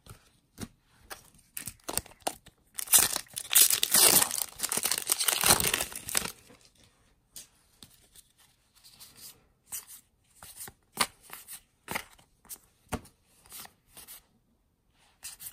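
A Magic: The Gathering booster pack wrapper being torn open, a crinkling rip that runs for about three seconds, starting roughly three seconds in. After it come soft scattered flicks and clicks as the cards are thumbed through one by one.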